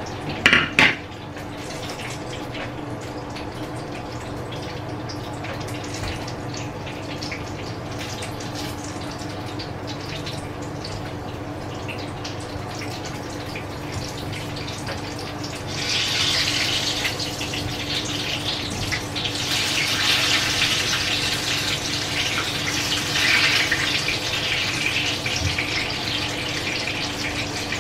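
Steady low electrical hum, joined about halfway through by a tap running offscreen, an even rush of water that goes on to the end.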